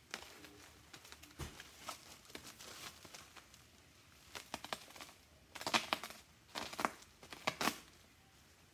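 Plastic bubble wrap crinkling and crackling as a parcel is handled and cut open with a knife, loudest in three short spells in the second half.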